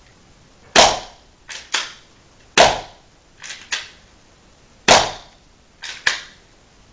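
Taurus PT 24/7 airsoft pistol fired three times, about two seconds apart, each shot a sharp crack. Between shots there is a pair of softer clicks.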